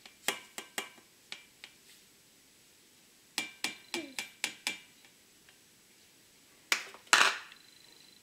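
Plastic container tapped repeatedly on the rim of a stainless-steel saucepan to knock the last sugar out, in two quick runs of about six light, ringing taps. Near the end, two louder knocks, the second with a short scrape, as the container is put down on the counter.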